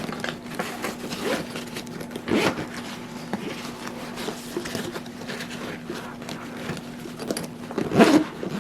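Rustling and scraping of a hard-shell laptop backpack being handled as a laptop is fitted inside, with two louder scrapes, about two and a half seconds in and near the end. A faint steady hum runs beneath.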